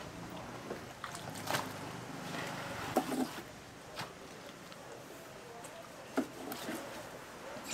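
A knife cutting through the thick flesh of a giant ocean sunfish, with scattered short wet slaps, scrapes and knocks as the flesh is sliced and pulled apart, over a steady background hum.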